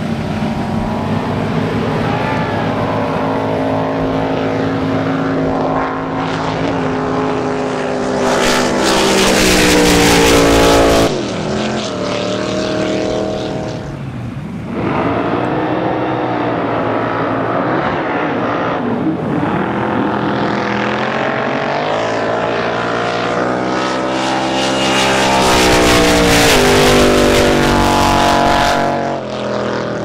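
Drag boat engines running at full throttle down the course, with the engine note shifting in pitch. It swells loudest twice, about a third of the way in and again near the end, as boats pass.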